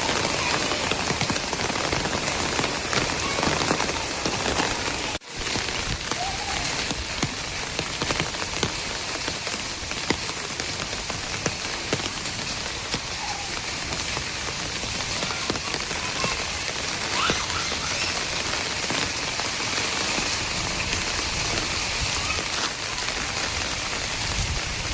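Steady rain falling on hard surfaces: a dense, even hiss of many drops. It cuts out for a moment about five seconds in.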